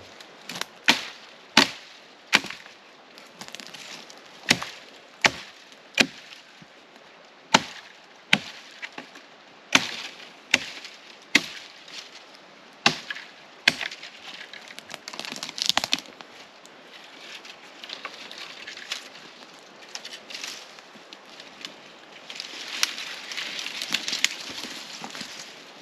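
A small axe chopping dry dead branches for fire starter: a run of sharp chops, roughly one every three-quarters of a second for the first fourteen seconds, then fewer and more spread out. Near the end, a stretch of crackling and snapping as the broken sticks are handled.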